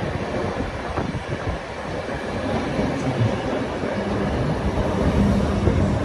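ÖBB class 4020 electric multiple unit, led by its 6020 driving car, running into the platform and past: wheels rumbling on the rails with occasional clicks. It grows louder as the cars go by, and a steady low hum joins about four seconds in.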